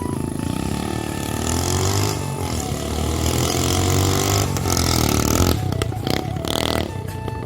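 Old air-cooled motorcycle engine revving, its pitch rising and falling, with a few sharp cracks about six seconds in.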